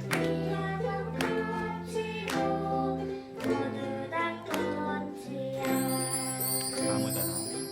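Ukulele ensemble strumming chords in a steady rhythm under a held melody line.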